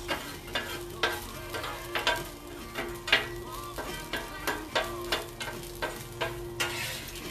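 Taco meat sizzling on a Blackstone flat-top griddle while a metal spatula scrapes and clacks on the steel top in irregular strikes, about two a second.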